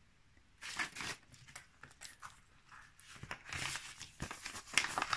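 Paper envelope and clear plastic binder pouches being handled: rustling and crinkling in short bursts with a few sharp clicks, starting about half a second in and busiest near the end.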